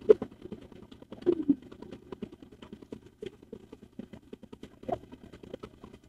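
Water gushing from a tubewell outlet pipe into a pool and splashing over a man ducking under the stream, heard as an irregular patter of splashes with a few louder splashes.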